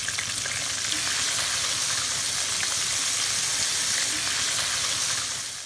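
Flour-battered shrimp deep-frying in a pan of hot oil: a steady, even sizzle.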